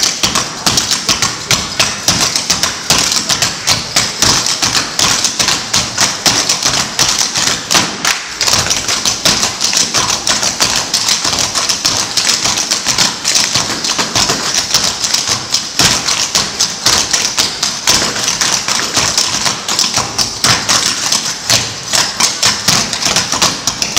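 A team of cloggers dancing an a cappella routine: the metal taps on their clogging shoes striking a wooden floor in a fast, dense, rhythmic clatter, with a couple of brief breaks.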